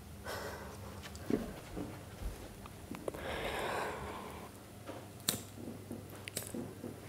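A woman's breathing and sniffing over a low steady room hum, with one long breath out about three seconds in and a few short clicks later.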